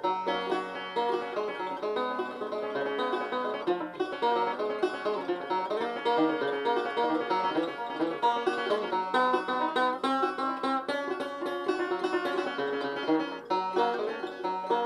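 Five-string banjo played solo, a steady run of quick picked notes with no singing.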